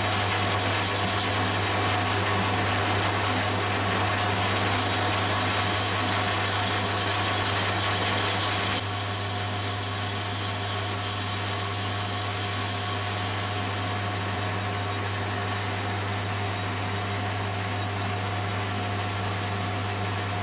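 Metal lathe running with a steady hum while a turning tool faces the end of a cast iron bar, then center-drills it. The sound steps down slightly about nine seconds in.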